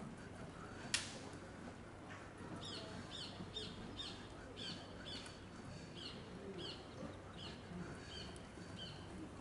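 A bird chirping in quick series of short notes that fall in pitch, over a steady low background. A single sharp click about a second in.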